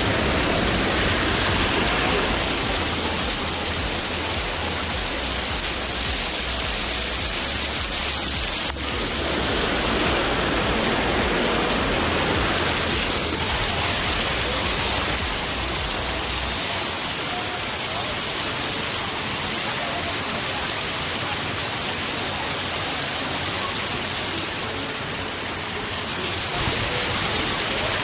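Steady rush of water from a small waterfall pouring and splashing over rocks, heard close up.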